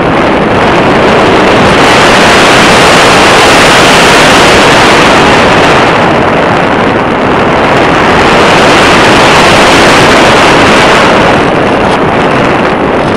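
Loud wind rushing over the microphone of a camera mounted on a flying RC glider: a steady roar of air with no motor whine, swelling and easing twice.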